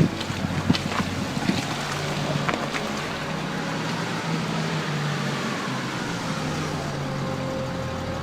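A vehicle engine running steadily at low speed on a rough track. Several knocks and rattles come in the first few seconds, and there is a little wind noise.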